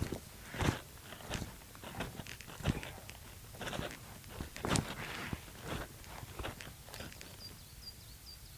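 Footsteps of a hiker walking on a mountain trail, irregular steps a few times a second. A faint series of short high chirps comes in near the end.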